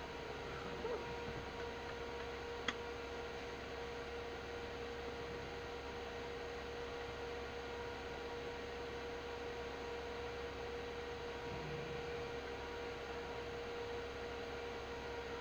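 Steady electrical hum, with one sharp click about three seconds in.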